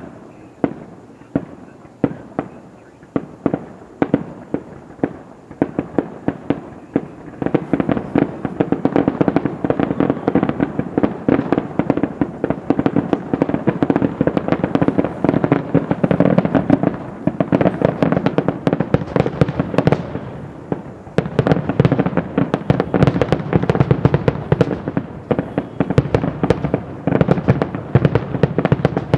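Aerial fireworks exploding: separate bangs at first, then from about seven seconds in a dense, rapid barrage of overlapping bursts that eases briefly near twenty seconds and picks up again.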